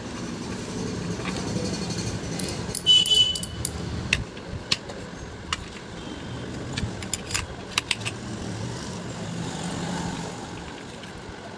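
Scattered sharp metal clicks and clinks as a bearing puller is fitted and worked on a ceiling fan shaft to draw off a worn ball bearing, with a brief squeak about three seconds in. A steady low rumble runs underneath.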